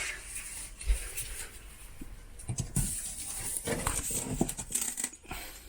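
Cardboard packaging rustling, with scattered light knocks and clicks, as a cat pokes about the box.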